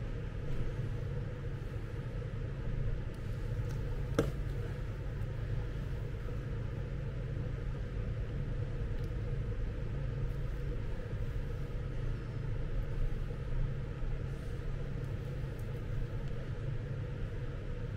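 Steady low background hum and rumble with a faint steady tone above it, and a single sharp click about four seconds in.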